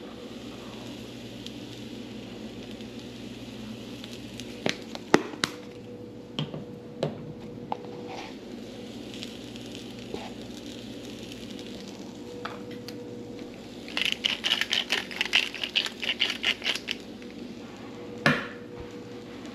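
Kitchen cooking sounds over a steady hum: scattered knocks and clinks of utensils on cookware, a quick run of rapid clattering about fourteen seconds in, and a single loud knock near the end.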